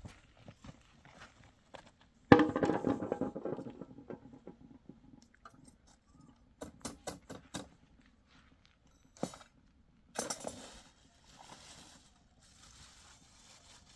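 A sudden loud clatter about two seconds in that dies away over a second or so, then a run of sharp clicks and knocks and a few brief rustles: objects being handled.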